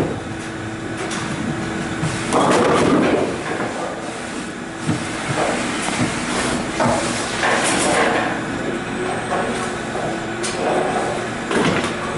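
Bowling ball rolling down a wooden lane and crashing into the pins about two and a half seconds in. It is followed by the knocks and clatter of a Brunswick pinsetter cycling to clear the deadwood, over a steady hum of alley machinery.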